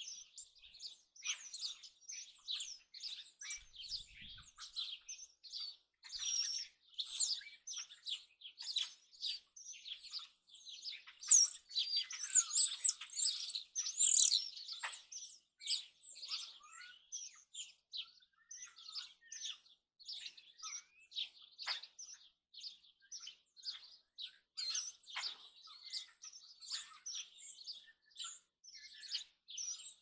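Many birds chirping and calling at once, a continuous chatter of short high calls overlapping one another. The calls grow louder, with rising and falling whistles, for a few seconds about halfway through.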